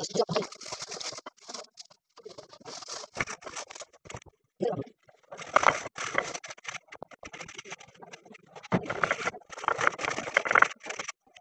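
Raw potato being sliced on a plastic chips slicer (mandoline): quick back-and-forth scraping strokes over the blade, in irregular bursts that are loudest in the middle and near the end.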